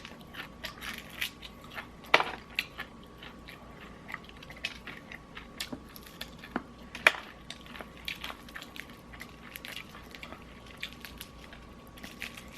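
Close-up crunching and chewing of crispy fried chicken: irregular crackles of the fried coating, with two louder crunches about 2 and 7 seconds in.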